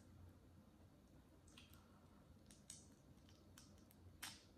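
Faint crackles and snaps of a boiled shrimp's shell being peeled by hand: a handful of short, separate cracks, the sharpest about four seconds in.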